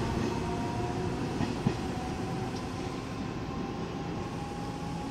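Taiwan Railway EMU300 electric multiple unit pulling away along the track, its running noise slowly fading with a faint steady whine. A single sharp click comes about a second and a half in.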